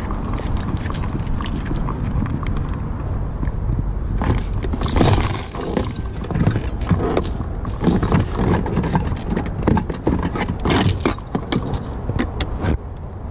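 Steady low wind and traffic rumble. From about four seconds in there is a run of irregular clicks, knocks and light clatter as handed-out goods, such as canned food and packets, are handled.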